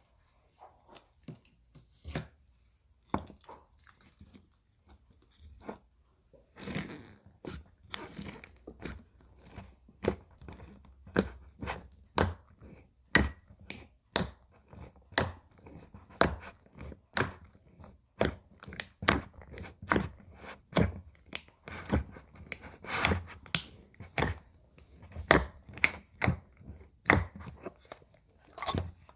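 Slime being squished and poked by hand, giving a run of sharp crackling pops and clicks. They are sparse and soft at first, then come thick and strong at roughly one a second.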